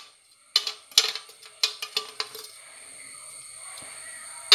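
A spoon clinking against a stainless-steel bowl, about five light metallic taps in the first two and a half seconds, as crushed garlic and ginger is knocked off into it. A faint steady hum follows, with one more sharp click at the very end.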